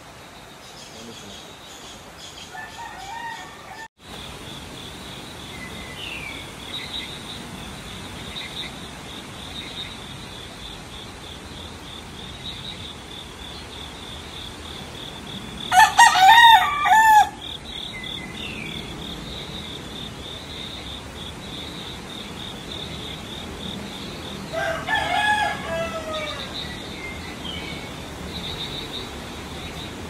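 A rooster crowing twice: a loud crow about halfway through and a fainter one near the end. A steady high-pitched drone runs underneath.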